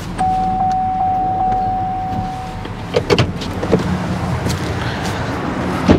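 Chevrolet Silverado 3500 tow truck's engine running as the truck backs up slightly toward the towed car to slacken the tow chain. A steady high squeal lasts a couple of seconds near the start, and a few short knocks follow.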